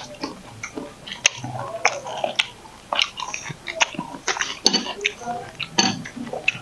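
People eating at a table: crunchy chewing and biting of raw vegetables and shrimp, with frequent short clicks and knocks of hands and utensils on plates.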